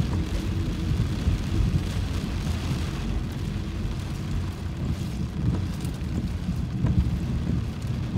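Heavy rain on a car's roof and windshield heard from inside the cabin, over a steady low rumble from the car and wet road.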